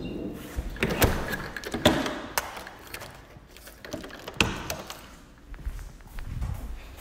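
A handful of sharp knocks and clunks, the loudest about one and two seconds in and another past four seconds, with quieter handling noise after.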